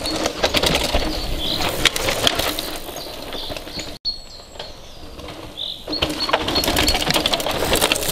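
Mountain bikes passing close on a dirt forest trail: tyres rolling over the dirt and the bikes' chains and drivetrains rattling with rapid clicking, once and then again after a break, while birds chirp briefly in the background.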